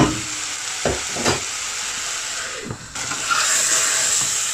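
Chicken and diced vegetables sizzling in a stainless steel saucepan while a metal spoon stirs and scrapes through them, with a few short knocks of the spoon. The sizzle dips briefly about three seconds in.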